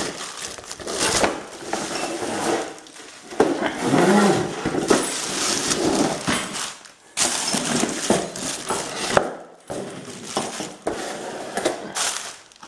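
Bubble wrap and plastic wrapping crinkling and rustling as brush-cutter parts are unwrapped and handled, in irregular bursts with sharp clicks and light knocks.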